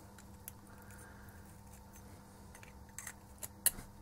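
A few small, sharp clicks and taps from the metal base, glass shards and pliers of a dismantled LED lamp being handled. There is one click about half a second in, then a short cluster near the end, the last the loudest, over a low steady background.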